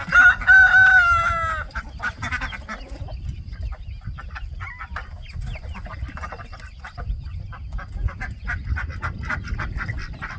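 A rooster crows once, loudly, right at the start, a single drawn-out call that falls away at the end; then hens cluck and chatter steadily inside the closed coop.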